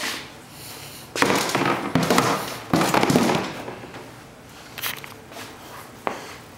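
Rocks dropped onto the steel link-chain rock conveyor of a Proline BigBanker high banker, clattering in two bursts of about a second each, followed by two single knocks.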